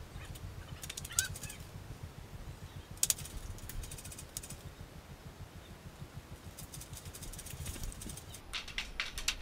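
Several short bursts of rapid clicking, typical of airsoft guns firing on the field, the loudest about three seconds in and a longer run near the end, over a low rumble of wind and handling on the head-mounted camera's microphone.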